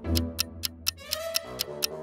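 Countdown-timer ticking, about four sharp clock-like ticks a second, over light background music. A short rising tone sounds about a second in.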